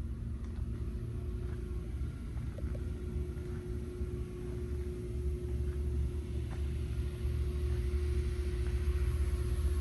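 Steady low rumble with a constant hum, growing a little louder in the second half, with a few faint ticks.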